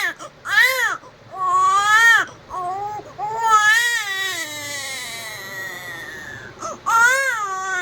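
Newborn baby crying in a series of wails, several short arching cries, then a long wail that falls away in pitch, and another sharp cry near the end.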